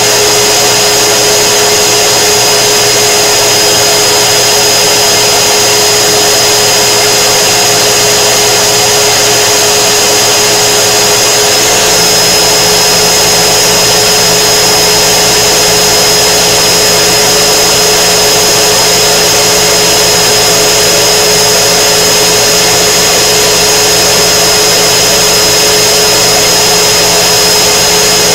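A K40 desktop laser cutter running, its fans and pumps making a steady whirring drone with a high whine. About twelve seconds in, a lower hum joins and carries on.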